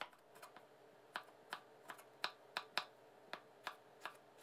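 Kitchen knife dicing tomatoes on a bamboo cutting board: a string of light, sharp knocks of the blade against the board, about three a second and unevenly spaced.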